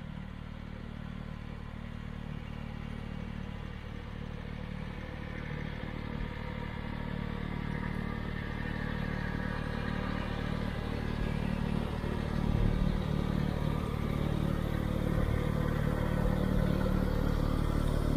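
Tractor engine running with a two-stage snowblower turning and throwing snow, growing steadily louder as the machine comes up and passes close by near the end.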